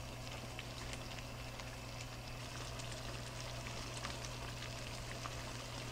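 Tomato sauce with peppers and onions bubbling at a boil in a skillet on high heat, with scattered small pops and light ticks, over a steady low hum.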